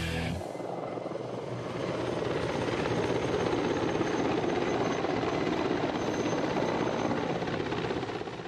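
Mi-35 (Mi-24 family) twin-turboshaft attack helicopter in flight, its rotor and engines making a dense rushing drone. It swells over the first couple of seconds, holds steady, and starts to fade near the end.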